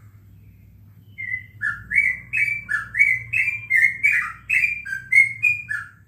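Caged yellow-vented bulbul (trucukan) singing a fast run of short whistled notes, about three a second, switching between higher and lower pitches. It starts about a second in and stops just before the end.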